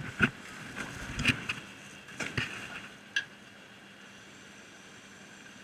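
Sharp clicks and clunks of a petrol-pump nozzle being handled and set into a motorcycle's fuel tank, five in the first three seconds, then a steady faint hiss of fuel running into the tank.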